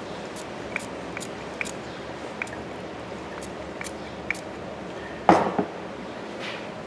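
Small clicks and squishes from a plastic squeeze bottle as alcohol is applied to a freshly wound copper voice-coil layer on a winding jig. Just over five seconds in comes a loud knock, then a second one close behind it.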